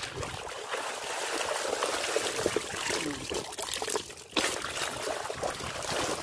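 Shallow muddy water trickling and splashing, with a short break about four seconds in.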